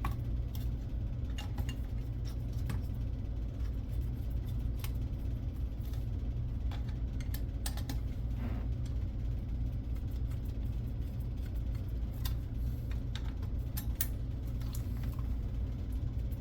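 Scattered small metallic clicks and taps as CPU cooler mounting screws are started by hand into the mount, over a steady low hum.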